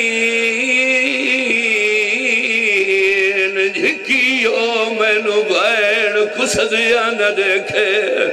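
A male zakir chanting a mournful lament in long held, wavering notes, amplified through a microphone.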